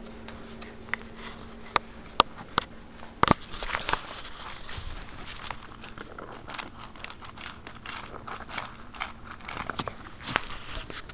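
Miniature schnauzer eating from a metal bowl: a few sharp clinks against the bowl, then a steady run of crunching and chewing.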